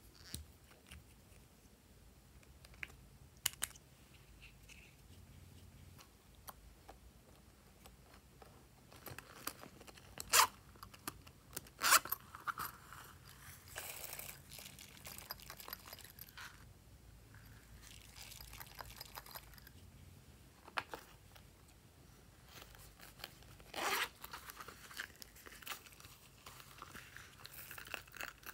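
Hands opening and handling small plastic containers of lip gloss, glitter and sequins over a bowl of slime. Scattered sharp clicks with crinkling and crunching, the two sharpest snaps coming about ten and twelve seconds in, and a longer crackle later on.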